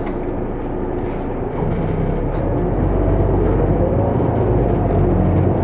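Engine of a VDL Citea SLFA 180 articulated city bus running, rising in level about a second and a half in and staying stronger, as when the bus pulls away under power.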